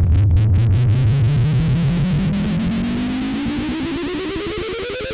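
Transition music: a distorted, guitar-like tone sliding steadily upward in pitch over a pulse that grows faster.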